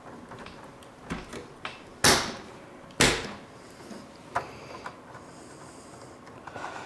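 Sheet-metal server chassis handled by hand: a few light clicks, then two loud metal clacks about a second apart, then a single click and a little rattling.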